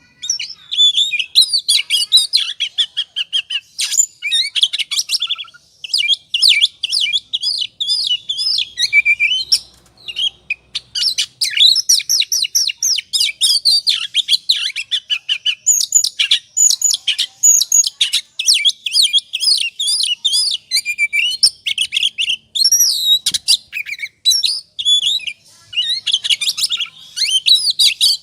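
Oriental magpie-robin (kacer) singing in the agitated 'ngobra' style: a fast, dense run of varied chirps, whistles and trills with only a few brief pauses.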